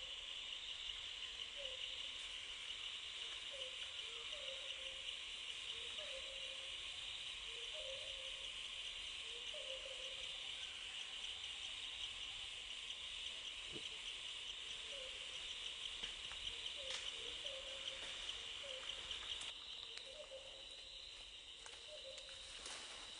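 Forest ambience: a steady high-pitched insect drone, with a short low hooting call repeating every one to two seconds, pausing for a few seconds in the middle.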